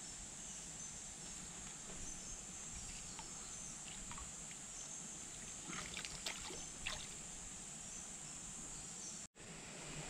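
Steady high-pitched drone of insects with the faint wash of a stream. About six seconds in come a few short splashes as a jungle perch is let go by hand in the shallow water.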